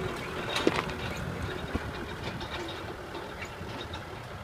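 Kubota M6040 tractor's diesel engine running as it tows a loaded trailer over rough field ground, with scattered clanks and rattles.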